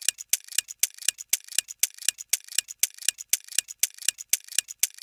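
Countdown-timer sound effect: a clock ticking steadily, about four sharp ticks a second.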